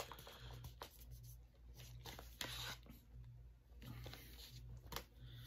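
A plastic DVD box set being handled: a few faint clicks and light rubbing over a low steady hum.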